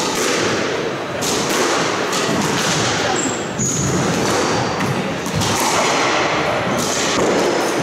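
A squash rally: the ball is struck by rackets and hits the court walls, a sharp thud about once a second.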